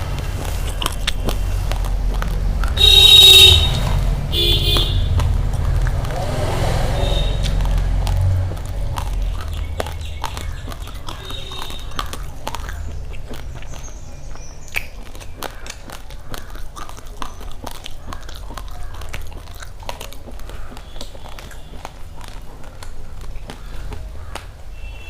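Crunching and chewing of uncooked rice grains, a dense run of sharp crackles. A low rumble sits under it for the first eight seconds or so, and a brief, loud pitched sound like a voice or call comes about three seconds in.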